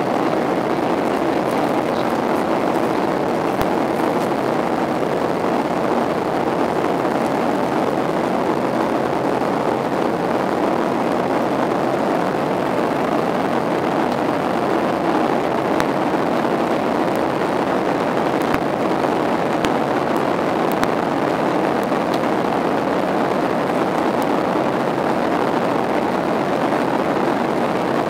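Steady cabin noise inside a Boeing 737-800 in flight: engine and airflow noise heard as an even, unchanging rush.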